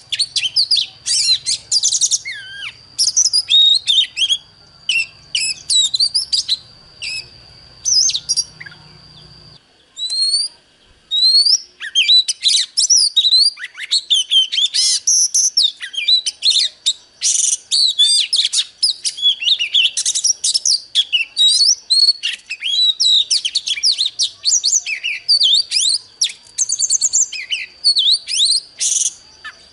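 Oriental magpie-robin singing a loud, fast, varied song of whistles and quick chirps, with a short break about ten seconds in. A steady high thin tone sits under the song in the first third and again near the end.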